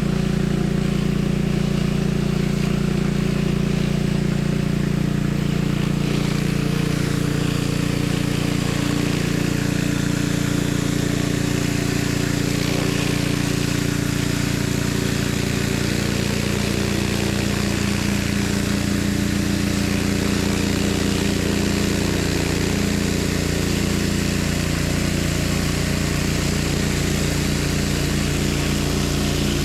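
Gas-engine pressure washer running steadily, a constant engine drone with spray hiss over it; the engine note shifts slightly about seven seconds in.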